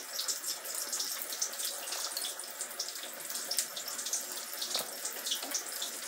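Running water: a steady splashing hiss with many small crackling ticks.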